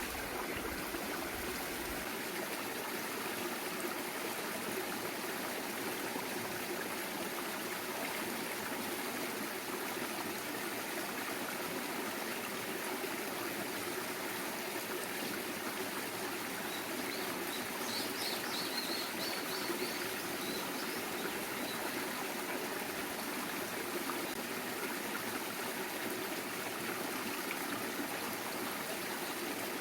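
A clear mountain valley stream running with a steady rush of water. About two-thirds of the way through, a small bird gives a short run of high chirps.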